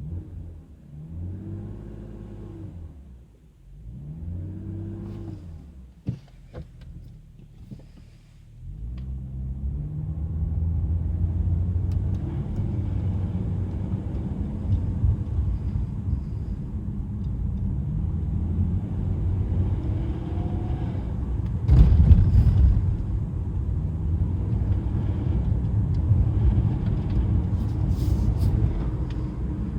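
Cold car engine: two short rising-and-falling pitched sounds early on, then a steady low running sound from about nine seconds in. About 22 seconds in comes a brief, louder noise, the strange noise that shows up only while the engine is cold and goes away once it warms up.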